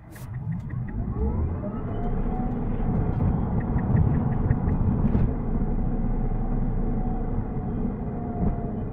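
Tesla Cybertruck cabin at speed: road and tyre rumble with an electric motor whine that rises in pitch over the first two seconds as the truck accelerates, then holds steady. A brief run of quick light ticks sounds a little past three seconds in.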